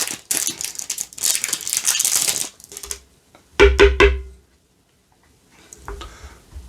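A plastic toy capsule being worked open, rattling and crackling for about two and a half seconds. About a second later come three quick knocks with a short ring as the heavy metal medallion inside is handled.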